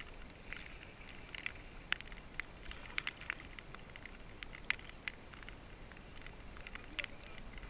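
Light, irregular ticking and pattering of water drops and small splashes around a sea kayak, over a low steady wind rumble on the microphone.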